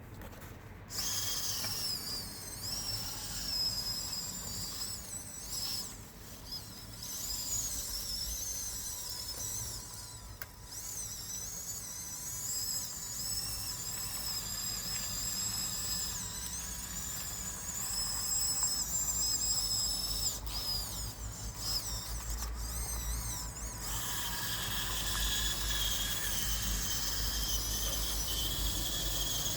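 Small electric motors of a Huina 1554 RC bulldozer whining high, their pitch rising and falling as the throttle changes. Near the end the whine settles to a lower, steadier pitch with a low rumble underneath.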